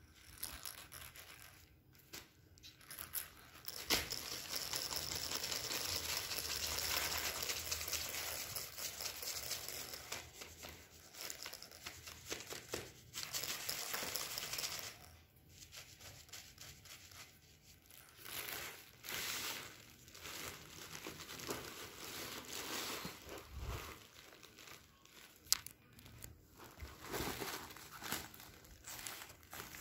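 Clear plastic packaging crinkling and rustling as it is handled, in one long stretch and then shorter bursts, with a single sharp click late on.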